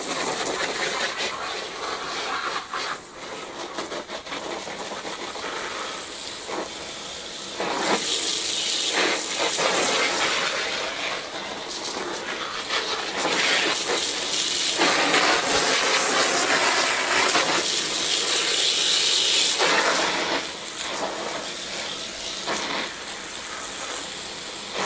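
Water hissing from a garden hose spray nozzle and spattering onto the plastic skin of an inflatable kayak, getting louder and softer as the jet is moved over the hull.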